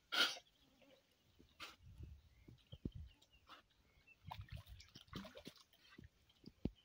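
African wild dogs wading in a shallow pool of water: irregular small splashes, sloshing and lapping as they shift about and dip their heads to drink, with one louder burst of noise just after the start.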